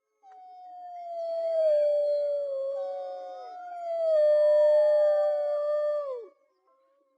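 Several wolves howling together in long, overlapping howls at different pitches. The howls swell twice and then fall away in pitch together a little after six seconds in.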